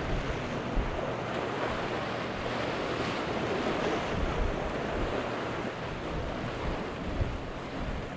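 Rough, whitecapped water and spray rushing as a Scarab jet boat runs through the chop, with wind buffeting the microphone. A faint steady engine hum runs underneath, and the rush swells between about two and five seconds in.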